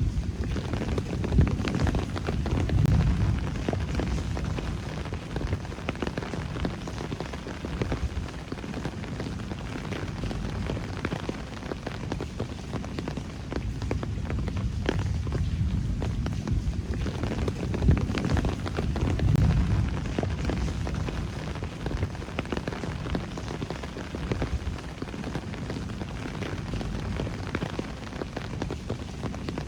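Rain falling on city streets and rooftops: a steady wash with many close drops ticking, over a low rumble that swells twice.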